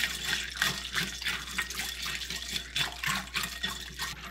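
Wire whisk stirring liquid lemon gelatin and ice cubes in a glass bowl: sloshing liquid with quick, repeated clinks of ice and whisk against the glass, a few strokes a second, getting quieter near the end.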